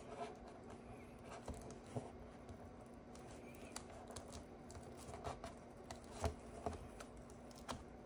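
Fingers handling a laptop LVDS display cable and pressing its connector into the back of an LCD panel: faint, irregular small clicks and scratches of plastic and metal, the loudest a little past six seconds in, over a faint steady hum.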